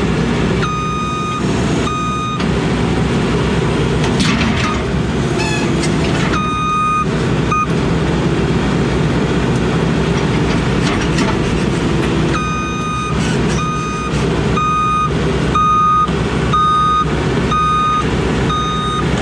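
Heavy-equipment diesel engine running steadily, with a backup alarm beeping at an even pace in several stretches while the machine travels in reverse. A few knocks come between the stretches of beeps.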